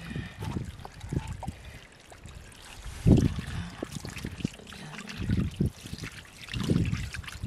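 Spring water from a thin pipe trickling and splashing into a plastic bottle as it is filled. Irregular low thuds run under it, the loudest about three seconds in.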